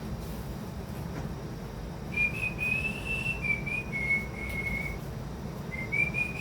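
A person whistling a tune: a few slow, held notes stepping up and down in pitch, starting about two seconds in, with a short break near the five-second mark before it picks up again.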